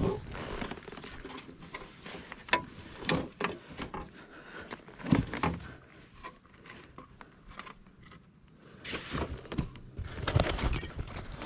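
Irregular light knocks and clicks on a fishing kayak, with a few louder knocks about a fifth and a half of the way in and a cluster near the end.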